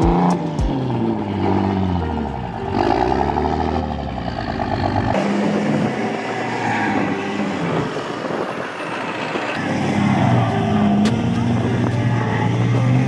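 Diesel pickup truck engines revving hard, their pitch rising and falling again and again; about five seconds in, the sound changes to another lifted truck spinning its tyres in soft sand, its engine climbing in pitch near the end as it struggles for grip.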